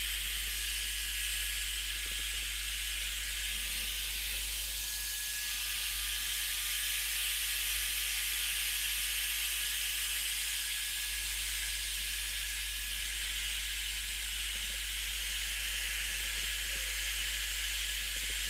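Electric heat gun running, a steady airy hiss from its fan blowing hot air.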